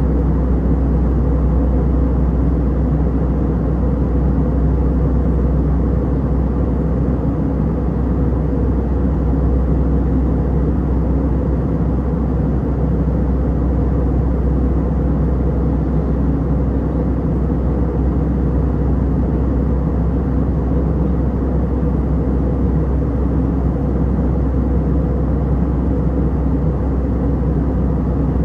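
Steady, even cabin noise of an Airbus A320 airliner, the deep rumble of its engines and rushing air heard from inside the passenger cabin.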